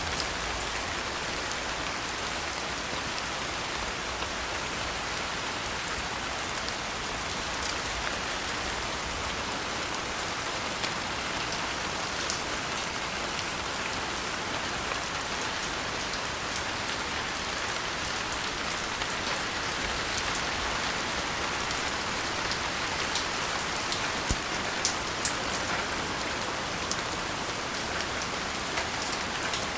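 Steady rain, a continuous hiss with scattered sharp taps of individual drops hitting a surface. A cluster of louder drop hits comes about three-quarters of the way through.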